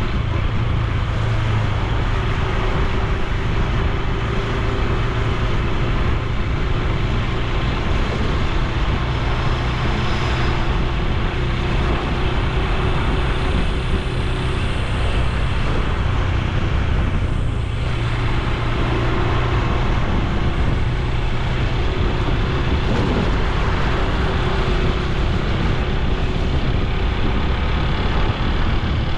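Honda Super Cub C125's single-cylinder four-stroke engine and exhaust running at a steady cruise, under an even rush of wind and road noise.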